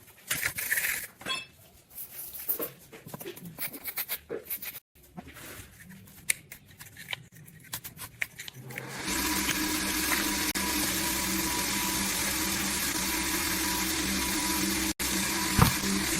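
Light clinking and clattering of small hard objects, then about nine seconds in a steady machine noise with a hum starts and keeps running.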